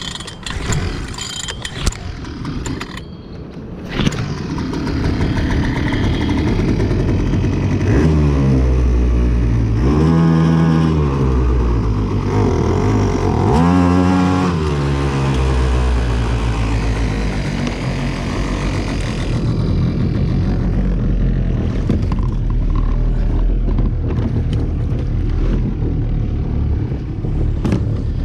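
Small two-stroke HangKai 3.6 hp outboard motor being pull-started again after a stall. It catches about four seconds in and runs steadily. A few seconds later its pitch rises and falls several times as it is revved up and down, then it settles into a steady run.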